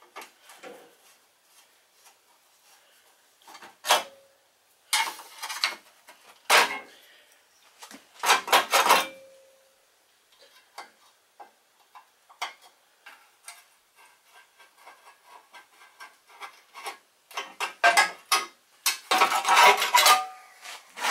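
Hand-tool work on a Tecumseh 8 HP small engine: a Phillips screwdriver turning out screws, with metal clicks, scrapes and rattles as a metal cover is worked loose. The noises come in scattered bursts with quiet gaps, and a denser run of rattling near the end as the cover is pulled off.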